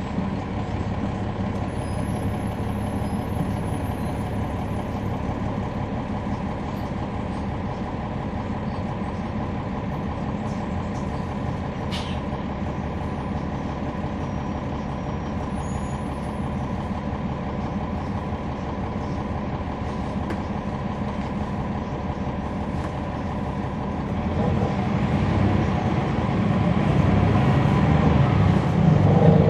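Cummins ISL9 inline-six diesel engine of a NABI 40-SFW transit bus, heard from inside the passenger cabin: a steady drone with ride noise. It grows louder and deeper from about 24 seconds in, with a single sharp click near the middle.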